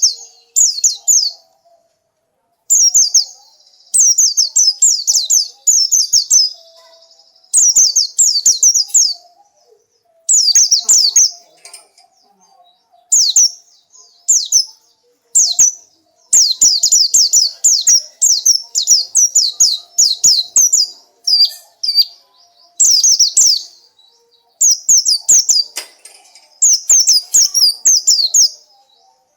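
White-eye (pleci) singing: bursts of rapid, high-pitched, downward-sweeping chirps, strung into phrases of about half a second to two seconds with short pauses between them.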